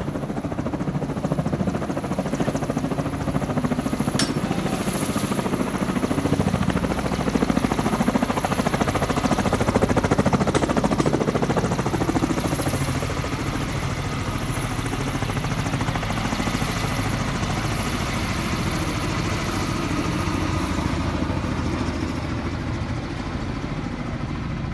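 Kamov helicopter's rotors beating rapidly with its engine running, growing louder toward the middle and then easing a little. A single sharp click about four seconds in.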